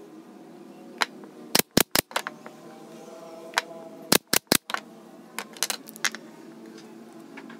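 Pneumatic nail gun firing into pine strips, shooting nails into a wooden frame: two quick bursts of three sharp shots, about a second and a half in and again about four seconds in, with a few lighter knocks of wood between.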